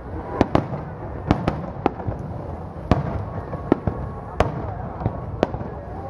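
Aerial fireworks shells bursting overhead: about ten sharp bangs at irregular intervals, some in quick pairs.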